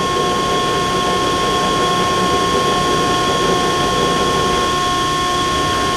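Betenbender hydraulic shear running, a steady hum with a whining tone, while its back gauge is driven out away from the blade.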